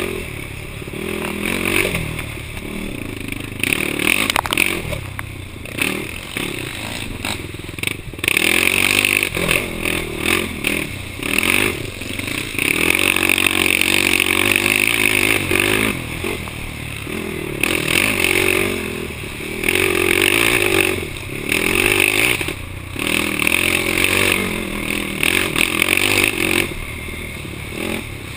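Yamaha YFZ450 sport quad's single-cylinder four-stroke engine racing over rough cross-country ground, its revs surging and dropping back again and again as the throttle is worked. The recording comes from a helmet camera, with wind and the rattle and scrape of the ATV over rough ground.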